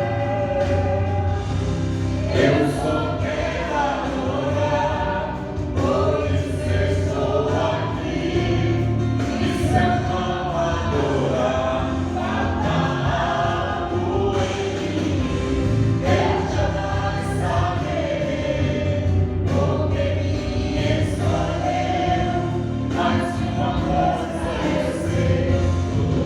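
Gospel worship song: a group of voices singing together over musical accompaniment.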